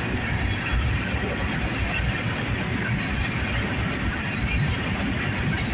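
Covered hopper cars of a freight train rolling past at close range: a steady rumble of steel wheels on the rails.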